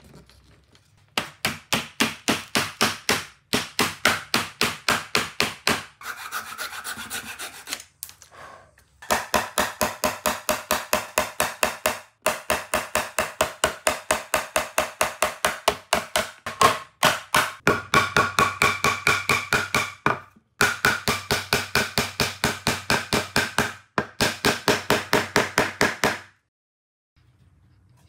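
A hand tool rubbed quickly back and forth on wood with a rasping sound, about five strokes a second, in runs of a few seconds with short pauses between them. It stops shortly before the end.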